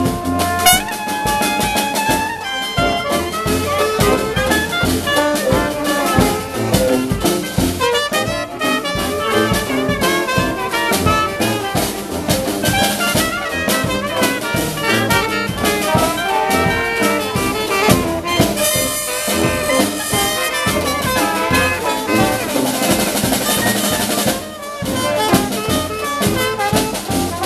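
Dixieland jazz band playing live: trumpet, trombone, alto saxophone, clarinet and sousaphone over snare and bass drum, with a steady beat.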